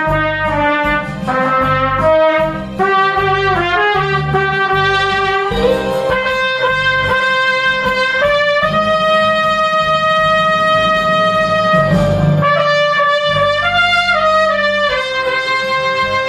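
Cornet playing a slow melody over a lower accompaniment, with one long held note about midway.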